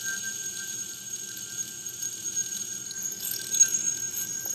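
Metal ball-bearing yo-yo sleeping on its string, giving a steady faint whir with thin high ringing tones.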